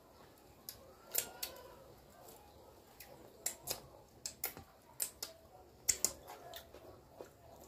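Eating sounds: irregular sharp clicks and smacks from a metal fork working food in a plastic bowl, along with chewing and finger-licking.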